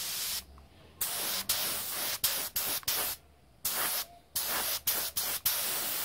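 Small touch-up spray gun spraying etch primer: a hiss of air and paint mist in a run of short bursts as the trigger is pulled and released, with brief breaks between them.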